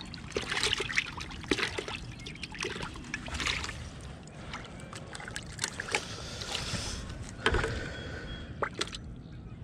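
Close handling noise: rustling of a jacket and dry grass with scattered light clicks and taps as fishing gear is handled.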